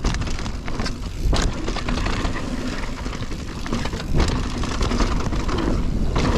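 Mountain bike riding on a dirt trail: wind buffeting the microphone over a rumble, with irregular clicks and rattles from the bike.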